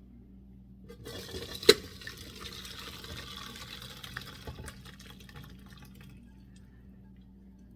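Hot onion water poured from a pot through a large strainer into a bowl: a splashing pour that starts about a second in and tails off after about five seconds, with one sharp clank just after it begins.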